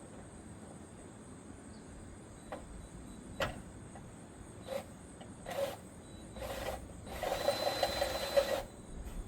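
Cordless drill/driver driving a gutter screw: a few clicks, two short squeezes of the trigger, then a longer run of about a second and a half with a steady whine before it stops.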